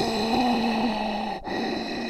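Zombie growl sound effect: a drawn-out, voice-like groan held on one low pitch, breaking off about one and a half seconds in as the next growl starts.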